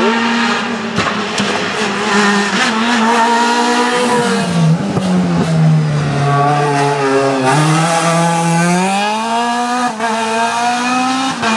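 Opel Astra hillclimb race car's engine running hard. Its pitch drops about four and a half seconds in as the car slows for a hairpin, then rises again as it accelerates out, with a few sharp cracks along the way.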